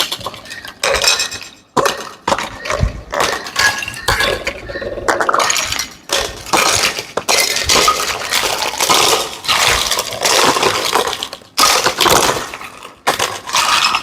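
Small plastic toy pieces clicking and clinking against one another, with crinkling packaging, handled continuously during unboxing, with brief pauses.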